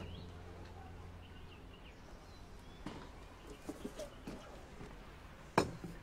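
Background music fading out, then quiet room sound with birds chirping outside. A few light clicks and taps are followed by one sharp knock near the end, the loudest sound.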